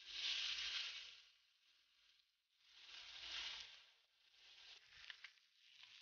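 Meat and vegetables sizzling on a hot griddle plate over glowing coals, swelling into a loud hiss as a slice is laid down and twice more as pieces are moved, with a few sharp ticks near the end.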